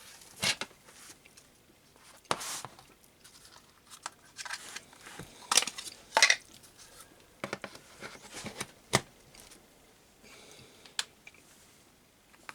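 Handling noises of a cordless tool's plastic parts: irregular clicks, knocks and scrapes as the 20V lithium-ion battery pack and the impact wrench are handled and fitted together.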